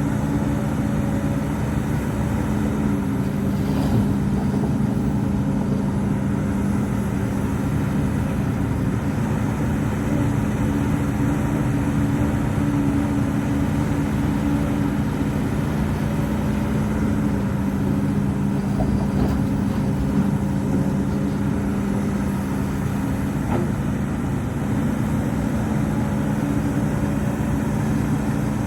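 Heavy diesel earthmoving machinery running steadily, its engine tone shifting slightly in pitch a few seconds in and again about halfway through.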